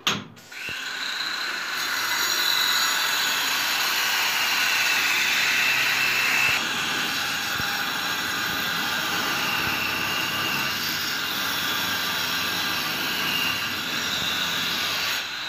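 A power tool running steadily: a loud hiss with a high whine that wavers slowly in pitch, its level jumping abruptly a few times.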